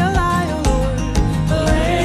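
Background music: an upbeat folk song with a steady beat and a sliding melody line, with no words sung here.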